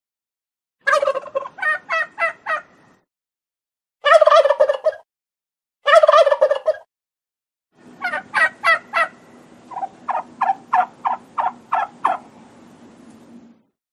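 Male turkey (tom) gobbling repeatedly while displaying. Each gobble is a quick run of rattling notes, and near the end comes a longer, slower string of separate notes.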